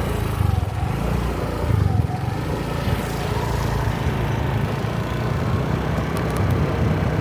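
Motorbike engine running steadily while riding, with a low hum under an even rushing noise.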